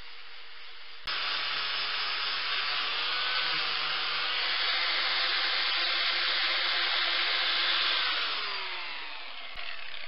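An electric power tool motor cuts in abruptly about a second in, runs loudly for several seconds, then winds down with a falling pitch near the end.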